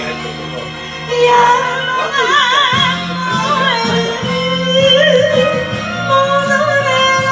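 Woman singing enka into a microphone over a karaoke backing track, with held notes in a wide vibrato from about two seconds in.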